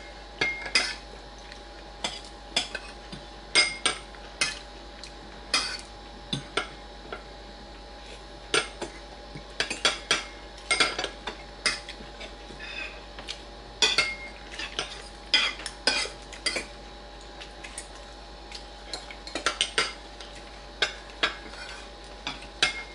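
Spoons and forks clinking and scraping against plates and bowls as people eat, in many short irregular clicks. A faint steady hum runs underneath.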